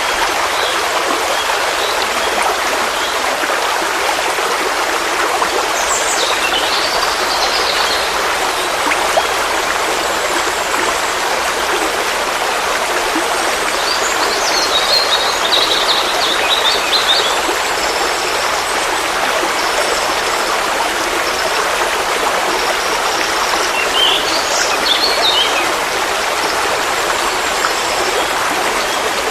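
Forest stream flowing, a steady rushing and babbling of water. Birds chirp above it three times, each for a second or two.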